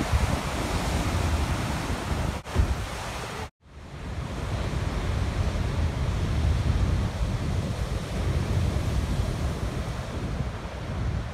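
High surf breaking on rocky ledges, a steady rush and low rumble of the sea with wind buffeting the microphone. The sound drops out briefly about three and a half seconds in, then the surf goes on with less hiss.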